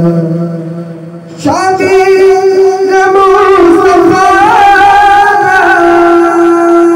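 A man singing a Punjabi naat, a devotional song, into a microphone. A held note fades out, then about a second and a half in he starts a new phrase of long drawn-out notes with ornamented turns.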